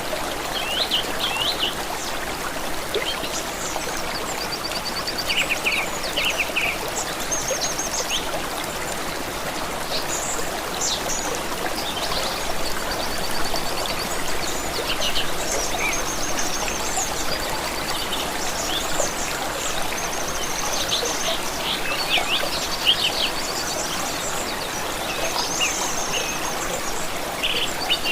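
Running water from a stream babbling steadily, with many small birds chirping and trilling over it throughout.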